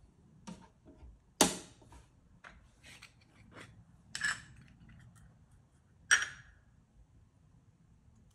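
Small metal objects being handled on and beside a light box: a sharp click about a second and a half in, then two clinks that ring briefly, around four and six seconds in. Lighter taps and rubbing come between them.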